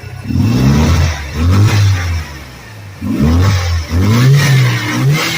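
The rebuilt 2.5L Iron Duke four-cylinder in a Chevy S10 is running at an unsteady idle. Its speed rises and falls about five times, surging as if revving on its own. This erratic running is the fault the owner is chasing on the rebuild, suspecting a vacuum leak, the IAC, the EGR, the O2 sensor or the thermostat.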